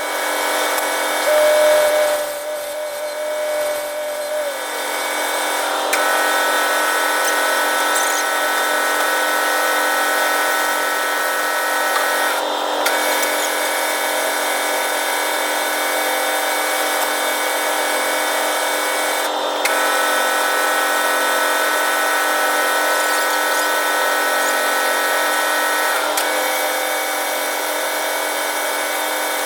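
Manual lathe running steadily with a whine of several steady tones. A higher gear whine cuts in and out every six to seven seconds.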